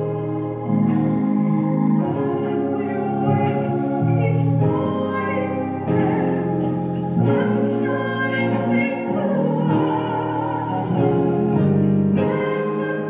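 A woman sings a gospel solo into a microphone, holding long notes over instrumental accompaniment.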